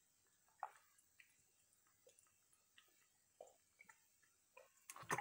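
Faint gulps and swallows of a person drinking juice from a carton: a few soft, separate sounds spread out, with louder ones near the end.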